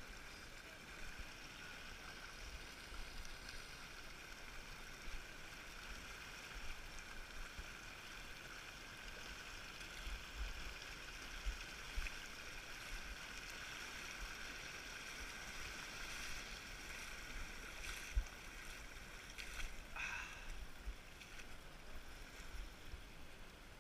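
Shallow mountain stream running over gravel: a steady, faint rushing of water, with a few short knocks near the end.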